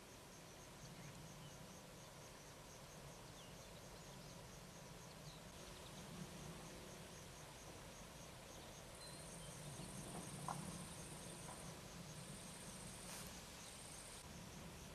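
Faint insects chirping, one with a regular chirp about four times a second, joined about nine seconds in by a higher, steady buzzing insect. A faint low rumble sits underneath.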